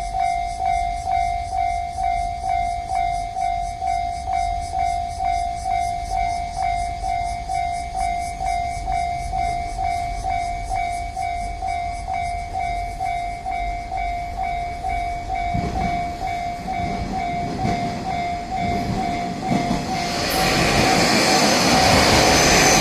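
Level crossing warning bell ringing steadily at about two strikes a second. From about 15 s in a 1200 series diesel railcar approaches, and from about 20 s the two-car train passes through the crossing, its running noise loud over the bell.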